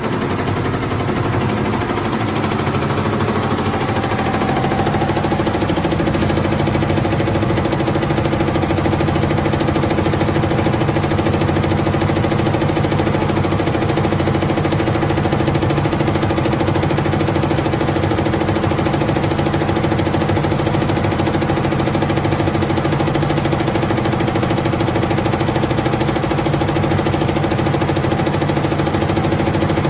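Tajima multi-head computerised embroidery machine stitching, its needles running at speed in a fast, even mechanical chatter over a steady hum. It rises within the first few seconds, then runs steadily.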